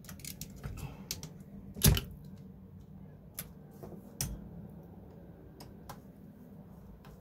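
Small scattered clicks and taps of plastic and metal parts on an RC crawler chassis being handled while a screw is worked into place, with a louder knock about two seconds in and another just past four seconds.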